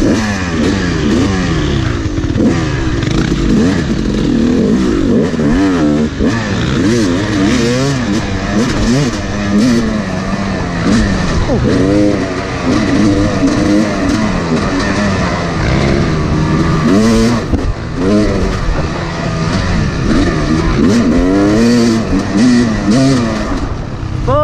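2011 Yamaha YZ250 two-stroke dirt bike engine under way, its pitch rising and falling over and over as the throttle is opened and closed and the gears change.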